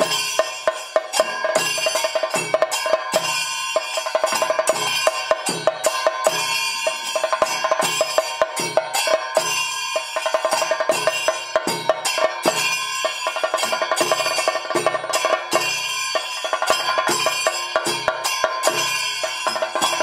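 Kerala temple ritual percussion playing without singing: fast, steady drum strokes under continuous metallic ringing.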